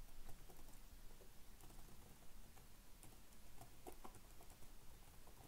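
Faint computer keyboard typing: scattered soft key clicks over a low steady hum.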